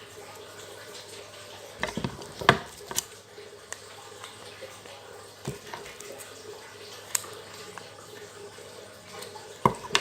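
Packaging being unwrapped by hand: scattered crinkles and sharp taps, a cluster of them about two seconds in and another near the end, over a steady background hiss.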